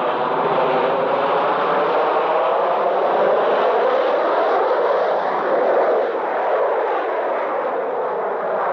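Aircraft engines droning, a steady noisy sound whose tone sweeps as the plane passes, loudest about six seconds in.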